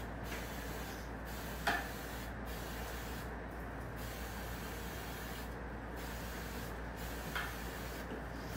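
Aerosol hairspray can spraying: a long hiss broken by brief pauses every second or so, with one light click just under two seconds in.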